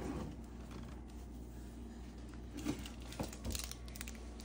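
Faint clicks and light rattles of small objects being handled as a toddler rummages in an open wooden kitchen drawer, with a few short knocks a little past the middle.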